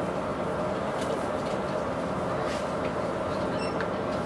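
Steady drone of an express passenger boat's engines underway, heard on board, with a constant hum.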